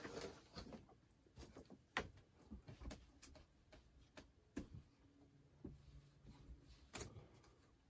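Near silence with faint, scattered clicks and light rubbing: a scrubbing pad worked by hand along the painted rails of an N-scale model railroad track, cleaning the paint off the railheads.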